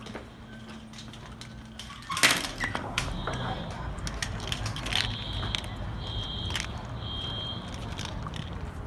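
A loud sudden clatter about two seconds in. Then a dormitory fire alarm starts sounding through the scene: short high-pitched beeps about a second apart in groups of three, with a longer gap between groups. This is the temporal-three evacuation pattern.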